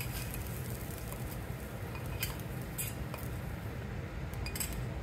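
A steel spoon scraping and clinking against a small steel tempering pan as the tempering is tipped into a pot: light clinks about two seconds in, again a little later and near the end, over a steady low hum.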